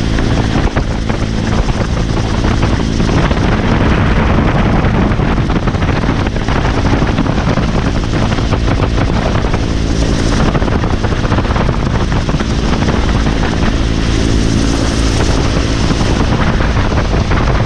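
Vietnam-era military helicopter running with a steady, loud rotor and engine drone that holds evenly throughout.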